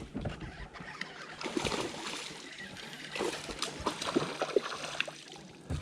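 Light water splashing and sloshing with scattered small knocks and clicks.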